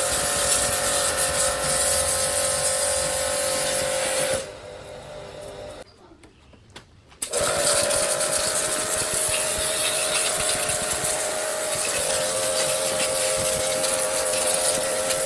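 Pressure-washer gun running: a steady motor whine over a loud water spray hiss. It runs for about four seconds, stops, and starts again about seven seconds in.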